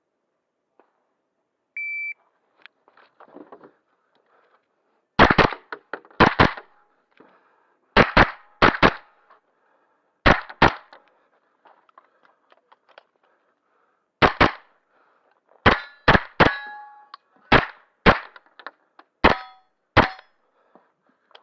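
Shot timer beeps once, then a JP pistol-caliber carbine fires a stage: quick pairs of shots at first, then single shots that set steel targets ringing briefly.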